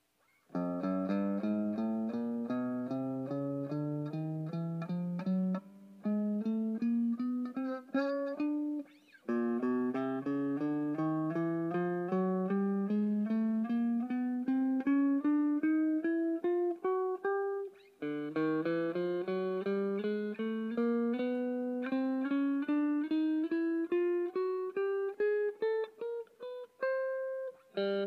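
Tokai ES-60 semi-hollow electric guitar played one picked note at a time in ascending runs. Three long climbs each rise steadily in pitch over about nine seconds, then start again low.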